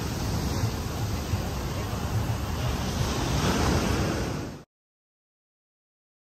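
Steady outdoor rushing noise with a heavy low rumble, like surf or wind buffeting the microphone, which cuts off abruptly a little over halfway through, leaving dead silence.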